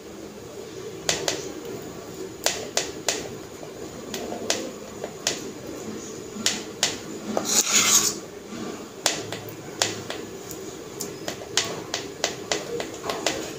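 Metal spoon clinking and scraping against a steel plate and a bowl while spreading chocolate over bread: a dozen or so sharp clinks spread through, with a longer scrape about eight seconds in.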